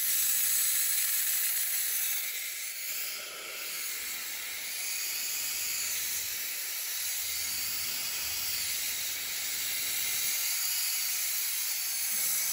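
Compressed air hissing steadily out of the open drain valve at the bottom of a charged air compressor tank, blowing out the rusty condensate that has collected inside.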